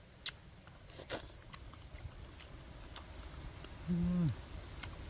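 A person chewing a mouthful of boiled egg, with soft wet mouth clicks, then a short low "mm" hum about four seconds in that falls in pitch.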